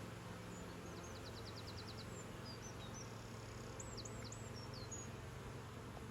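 Honeybees humming steadily from a busy colony, with a small bird singing in the background: a quick trill of about eight notes about a second in, then scattered high chirps and whistles.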